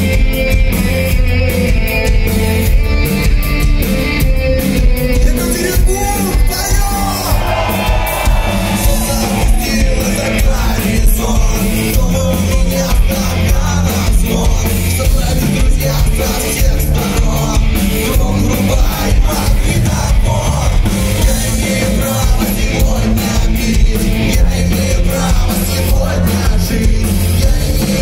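Live rock band playing loudly: a male singer on a handheld microphone over electric guitar and a steady drum beat.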